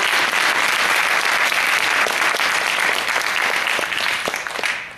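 Audience applause in a school auditorium: dense, steady clapping from many hands that dies down near the end.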